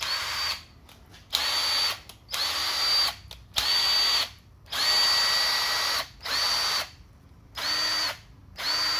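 Makita DTW190 18 V cordless impact wrench running free with no load, in about eight short trigger pulls. Each pull gives a brief motor whine that rises quickly and then holds steady before it cuts off.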